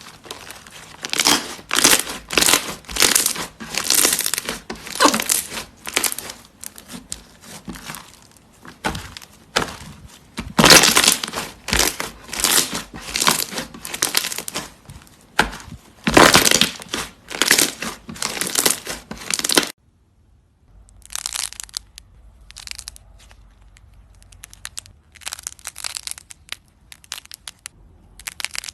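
Crunchy slime being squashed and pressed, giving repeated runs of crisp crackling and popping. About two-thirds of the way in it cuts abruptly to a quieter, thinner crackle.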